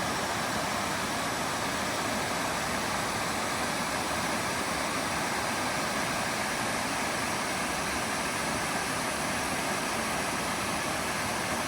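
Waterfall on a river rushing steadily: an even, unbroken wash of falling water.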